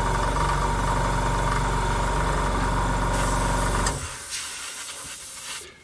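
Airbrush compressor running with a steady hum. A hiss of air comes in about three seconds in, the motor cuts out about a second later, and the hiss carries on more quietly, fading out shortly before the end.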